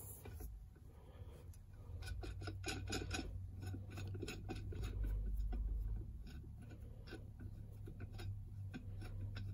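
Hand socket ratchet clicking in short runs as a bolt is turned at the seatbelt anchor, several light clicks a second.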